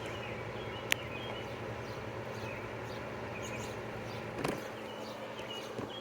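Steady outdoor background noise with faint short chirps, like birds. There is a sharp click about a second in and a duller knock about halfway through.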